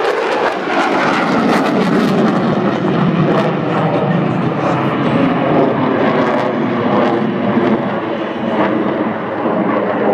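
Aircraft flying past, its engine noise loud and steady throughout, with a slowly falling whine in the first few seconds.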